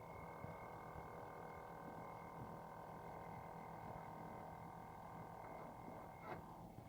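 Samsung Zipel refrigerator running with a faint, steady whining hum of several tones, and a short click near the end.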